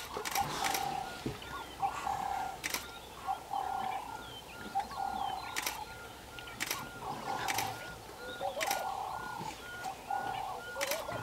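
Birds calling in the bush: one repeats a short note about three times a second while other warbling calls come and go. Irregular sharp clicks cut through now and then.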